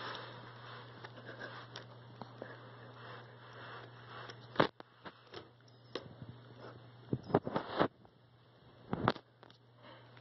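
Scattered soft taps, knocks and rustles from a cat pawing and nosing at a laptop, over a low steady hum. The taps come in small clusters, loudest about halfway through and near the end.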